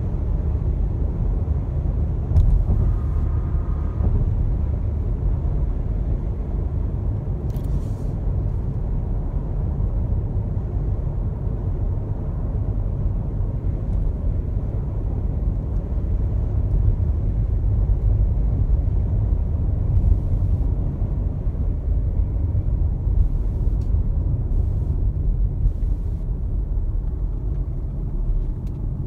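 Steady low rumble of a car's road and tyre noise, heard from inside the cabin while driving at highway speed.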